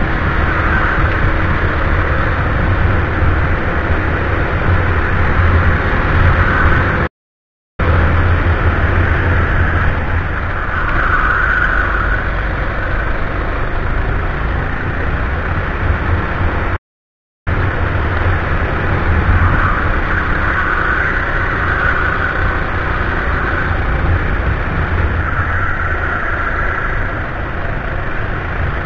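A go-kart engine running hard through a lap, heard through the kart's onboard camera microphone as a steady, loud mix of engine and rushing air. The sound cuts out completely twice, each time for well under a second.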